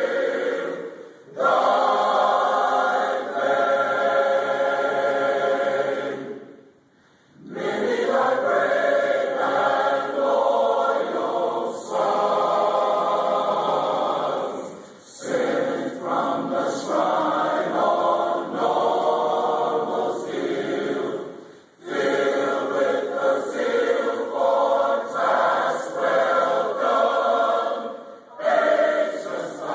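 A choir singing in long held phrases, with short pauses between phrases.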